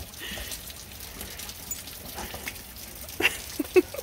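Steady patter of rain on a soaked driveway, with a few short, sharp sounds close together near the end.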